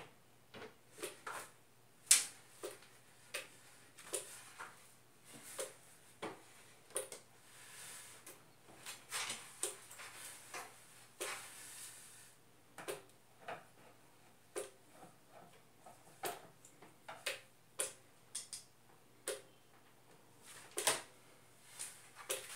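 Irregular clicks, taps and scrapes of plastic parts being handled on the open indoor unit of a split-type air conditioner, one to three sharp knocks a second with short scraping rubs between.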